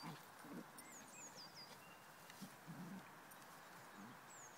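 Faint, short low grunts and growls from two small dogs play-fighting, with a songbird's short phrase of high, quickly falling notes heard twice.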